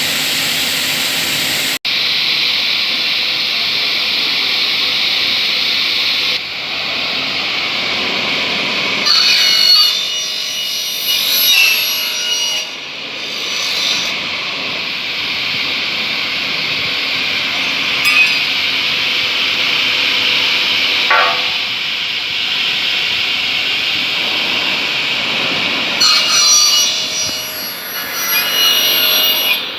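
Bench-mounted aluminium cutting saw with a 355 mm blade and 1.5 kW motor, running and cutting through thick aluminium window profile: a steady high whine with rougher, louder surges as the blade bites into the metal, several times over.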